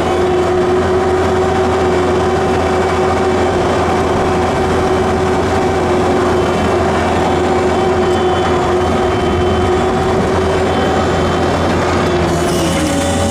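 Skid steer loader's diesel engine running steadily, with a steady whine over it that drops in pitch near the end.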